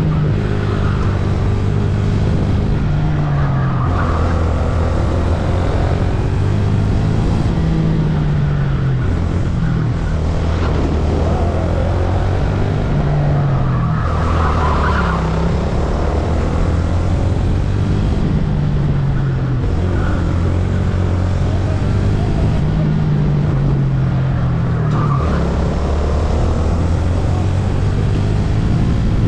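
VT250 rental kart's engine heard onboard, its note climbing in pitch under acceleration and dropping back several times as it slows for corners, with a haze of wind and road noise.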